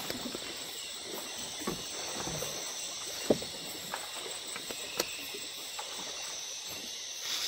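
A steady, high chorus of night insects over the river, with scattered sharp knocks and small water sounds from the canoe. The loudest knock comes about three seconds in and another about five seconds in.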